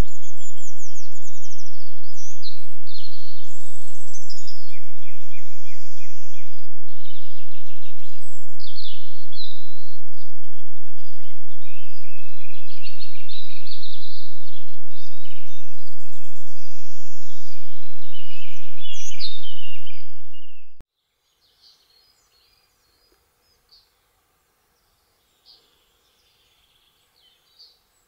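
Several songbirds singing together, a busy mix of chirps and trills, over a steady hiss from the trail camera's microphone. The sound fades out about twenty seconds in, leaving near silence.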